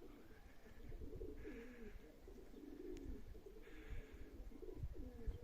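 Domestic pigeons cooing faintly, several wavering coos overlapping without a break.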